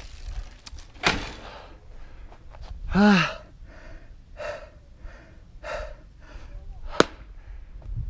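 A person breathing hard and gasping in short bursts, with one short voiced cry about three seconds in, and a sharp click near the end.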